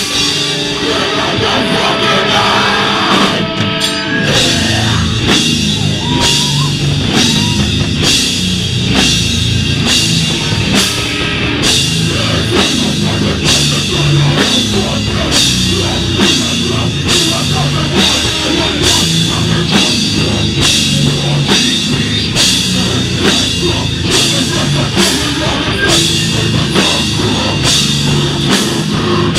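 Beatdown hardcore band playing live and loud: heavily distorted guitar over a drum kit with dense drum and cymbal hits. Held guitar notes ring for the first few seconds before the band drops into heavy chugging.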